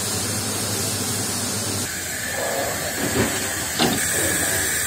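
Steam locomotive of the Nilgiri Mountain Railway venting steam in a steady, loud hiss, with two short metallic knocks about three and four seconds in.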